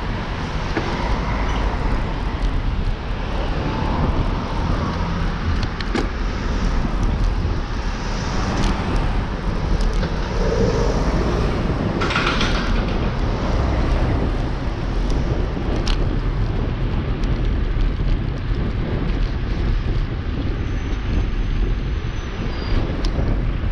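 Steady road traffic noise with a strong low rumble, heard from a bicycle riding along a city cycle route. There are a few sharp clicks and a brief hiss about twelve seconds in.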